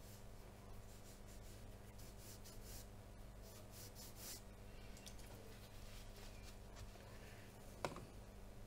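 Faint strokes of a damp flat brush on watercolour paper, a quick run of them in the middle, lifting light spots out of a painted water surface. A single sharp click comes near the end, over a low steady hum.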